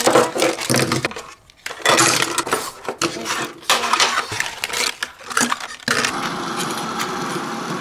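Metal fidget spinners, tins and cardboard boxes handled and set down on a table: clattering, clicking and knocking. From about six seconds in, a steady, even noise.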